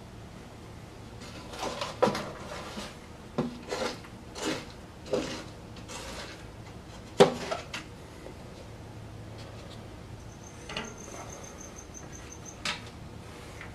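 A black plastic pot being pressed, tilted and lifted out of bark substrate in a glass terrarium: a string of knocks and scraping rubs, the loudest about seven seconds in, then two lighter knocks near the end.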